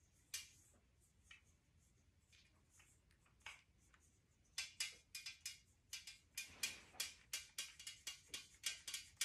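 Quiet clicks and clinks of a Scentsy warmer's pierced-metal shade pieces being handled and fitted together, a few scattered taps at first, then a quick run of them in the second half.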